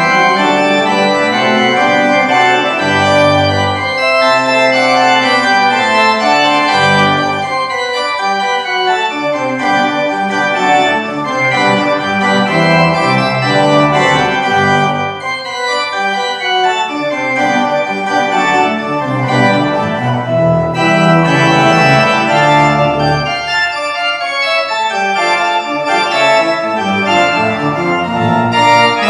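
Church organ played from a three-manual console: sustained chords that change every second or so, with several lines moving at once.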